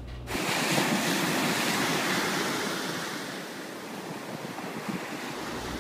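Surf washing up onto a sandy beach: a wave breaks and its foam rushes up the sand, the rushing loudest in the first couple of seconds and then slowly fading as the water draws back.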